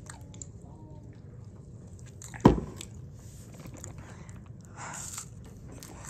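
Biting and chewing a chocolate-coated peanut butter wafer bar close to the mouth, with small crunches and one loud sharp knock about two and a half seconds in.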